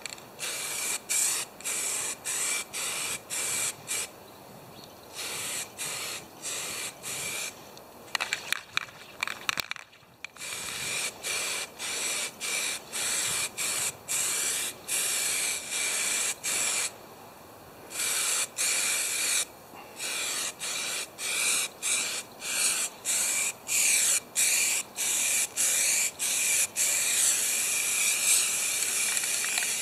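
Aerosol spray paint can spraying in short hissing bursts, about two a second, with longer sprays near the end.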